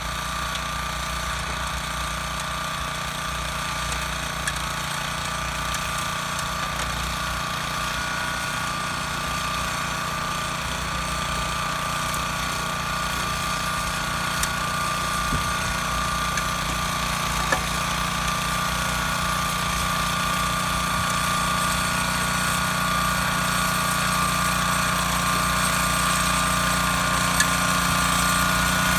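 Kubota TR90 rear-tine tiller's 6.8 hp engine running steadily under load while its tines churn the soil, growing a little louder toward the end. A few faint ticks stand out above it.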